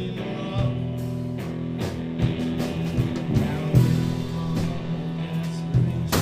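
Live rock music with electric guitar and a steady low bass line, broken by sharp bangs roughly every second.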